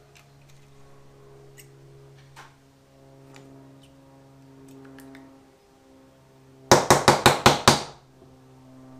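Background music with faint clicks of small parts being handled; a little over two-thirds of the way in, a quick run of about seven loud knocks within about a second.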